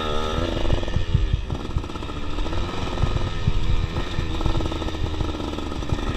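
Dirt bike engine heard from on the bike, revving up and down as the throttle is worked, with a rise in revs at the start.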